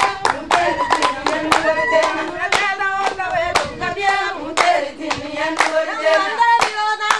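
A group singing together while clapping their hands in time, about two claps a second.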